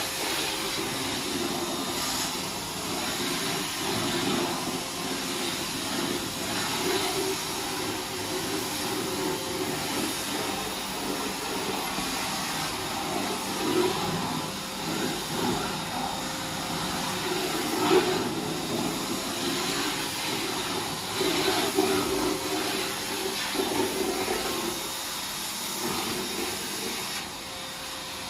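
Vacuum cleaner running steadily with a constant motor whine and rushing suction, its nozzle picking up debris from a dirty surface with irregular crunchy crackles and rattles, a few of them sharper in the middle. The running gets slightly quieter near the end.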